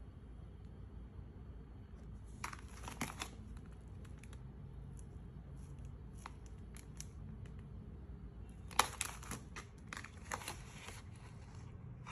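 Faint crinkling and tearing handling noise in two clusters of quick crackles, one a couple of seconds in and a busier one from about nine seconds in.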